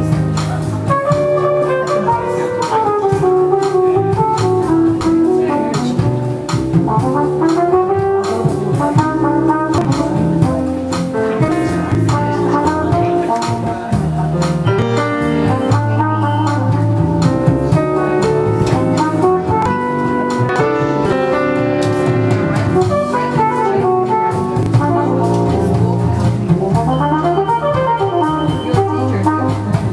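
Live jazz ballad played instrumentally: a keyboard accompanies a lead melody that slides up and down between notes, over steady low bass notes.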